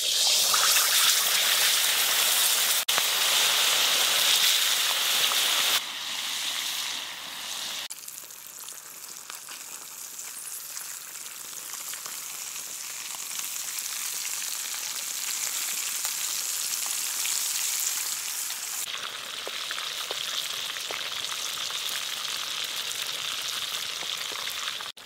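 Whole red-chilli-marinated fish deep-frying in hot oil in a kadhai: a loud, steady sizzle as the fish goes in, dropping to a quieter steady sizzle after about six to eight seconds.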